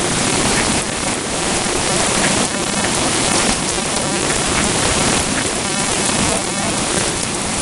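Rain pouring steadily and loudly in a thunderstorm.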